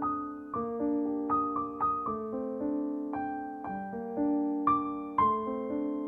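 Background piano music: single notes struck one after another, roughly two a second, each ringing and fading over held lower notes.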